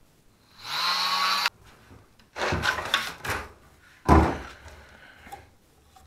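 Oscillating multi-tool run briefly about half a second in, its motor spinning up to a steady whine for about a second and cutting off sharply. Then rustling and scraping of plastic waste pipe being handled, with one loud knock about four seconds in.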